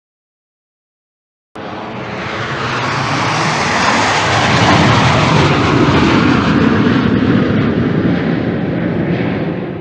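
Canadair CT-114 Tutor jet trainer going by, its single turbojet's noise starting abruptly after a second and a half of silence, swelling to a peak midway and then fading away.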